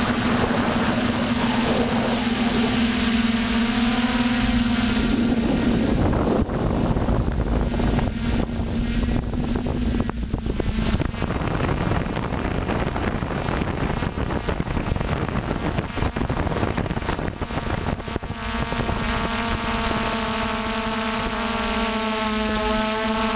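An FPV drone's electric motors and propellers whining at a steady pitch, recorded by the onboard camera. For several seconds in the middle the whine gives way to rushing wind buffeting the microphone, then the steady whine with its higher overtones comes back near the end.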